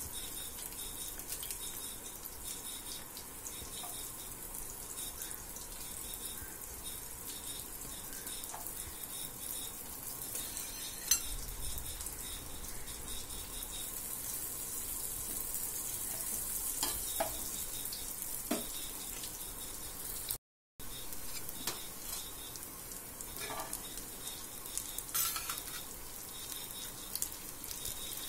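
Chopped onion and garlic sizzling in hot oil in a frying pan, a steady hiss with a metal spoon now and then clicking and scraping against the pan. The sound cuts out for a moment about two-thirds of the way through.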